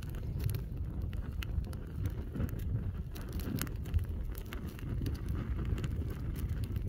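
Lawn mower air filter burning in open flames: a steady low rumble of fire with scattered crackles and snaps.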